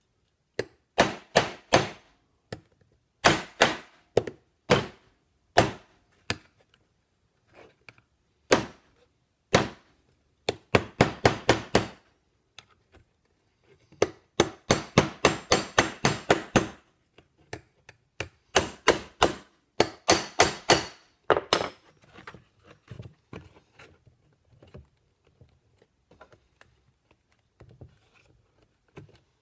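Ball-peen hammer peening copper rivets through a 16-gauge steel strip into a leather bracer, with the rivet heads backed on an anvil horn. The blows are sharp metallic and come in bursts, some as fast runs of about five a second. They tighten the rivets down, and the last few seconds hold only lighter, sparser taps.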